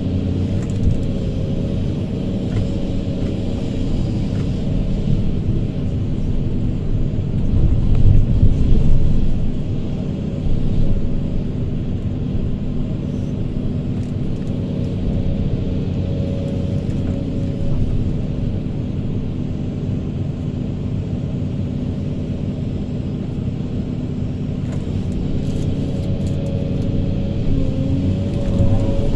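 Kobelco hydraulic excavator's diesel engine running steadily under load, heard from the operator's cab, as it digs sand and swings to load a dump truck. The engine swells briefly about eight seconds in.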